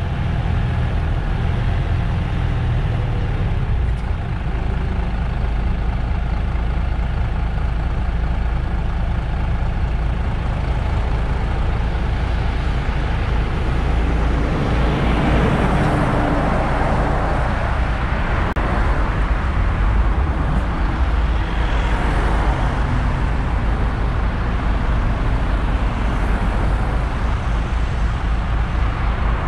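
Diesel engine of a MAN Lion's City GL articulated bus running steadily with a deep, even rumble. A swell of broader noise rises and fades about halfway through, with a smaller one later.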